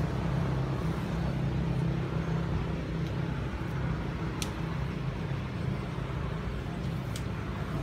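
Steady low drone like an engine running, with a few faint clicks.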